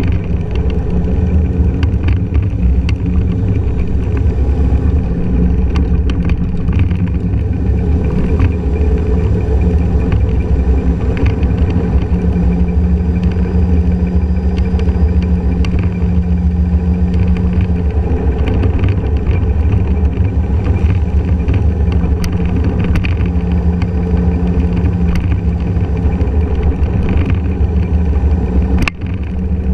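Small Honda scooter riding steadily along a road, its engine humming over road and wind rumble picked up by a camera mounted low on the scooter. There is a brief click and dip in level about a second before the end.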